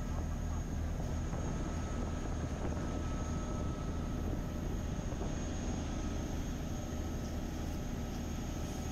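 Diesel engine of a Chao Phraya Express passenger boat running with a steady low drone, heard from aboard, with a faint steady high whine over it.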